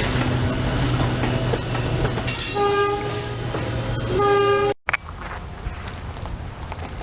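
SEPTA Silverliner electric commuter train running with a steady low hum and wheel clatter, sounding its horn in two short blasts about a second and a half apart. The sound cuts off abruptly about five seconds in, leaving a quieter outdoor background.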